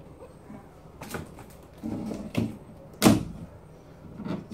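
A few knocks and clunks from a glass terrarium being handled and closed, with a soft rustle of a towel; the loudest clunk comes about three seconds in.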